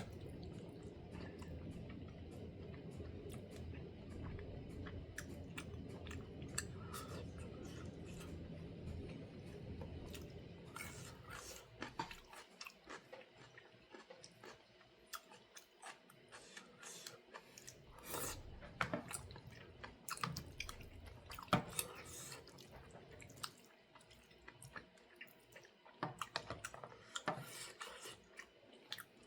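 A person quietly chewing and eating Korean braised chicken (jjimdak), with scattered short crunches and clicks. A low steady hum underneath stops about twelve seconds in.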